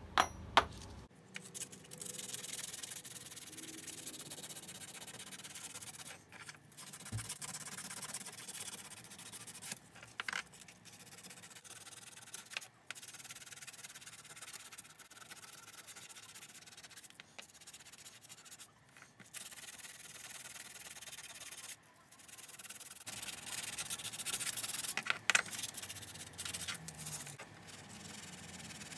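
A small metal ring being sanded by hand with a piece of abrasive, scratchy rubbing strokes in stretches with short pauses. A couple of sharp clicks near the start.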